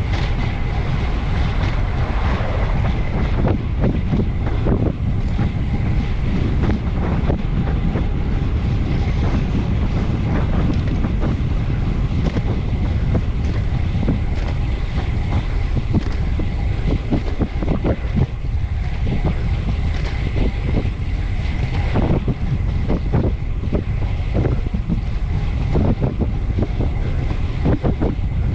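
Heavy wind buffeting the microphone of a camera on a bicycle ridden at full effort, a steady deep rumble with scattered knocks.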